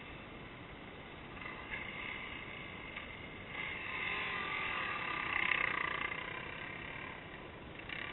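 Dirt bike engine running, the revs and loudness building from about halfway through to a peak, then easing off before picking up again at the end as the rider powers up the track.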